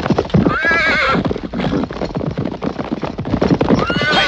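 A horse whinnying twice, one wavering neigh about half a second in and another starting near the end, over a fast, continuous clatter of knocks.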